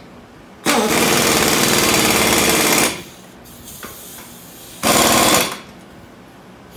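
Pneumatic impact wrench hammering in two bursts, a long one of about two seconds and then a short one about four seconds in, tightening the bolts of the new brake caliper mounting bracket on the front hub.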